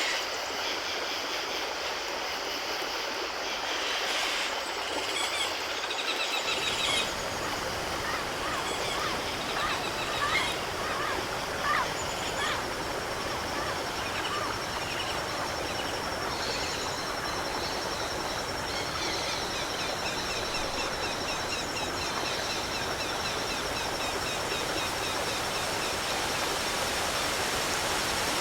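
Steady rush of flowing stream water, which grows fuller and deeper about six seconds in. Birds chirp through the middle, and rapid trills come in a couple of times.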